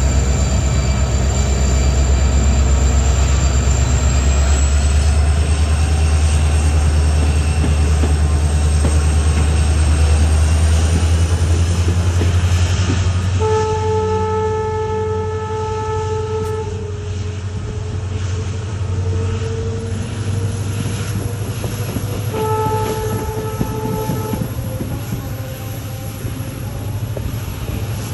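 EMD WDG4 diesel-electric locomotive accelerating a passenger train, its two-stroke V16 diesel giving a heavy low hum, with a faint high whine rising in pitch over the first dozen seconds. About halfway through the locomotive horn sounds one long blast, then a shorter blast later.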